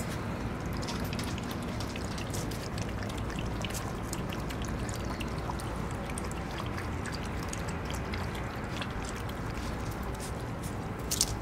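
Puppies feeding from a stainless-steel bowl: quick irregular licking and clicking of mouths and tongues against the metal, over a steady background hiss.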